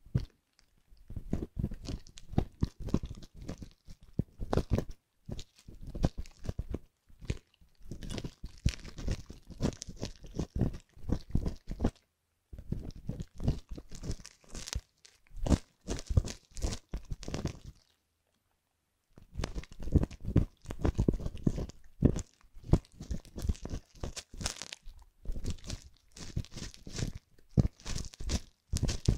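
A metal ear hook and tweezers scrape and pick crusty, hardened fake ear debris inside an ear model's canal. The result is rapid crunchy crackling in runs of several seconds, pausing twice.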